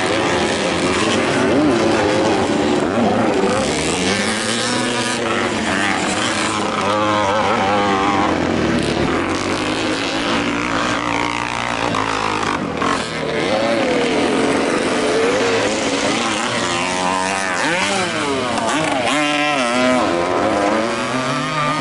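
Several vintage motocross motorcycles racing on the track, their engine notes overlapping and repeatedly rising and falling as the riders rev up, shift and back off.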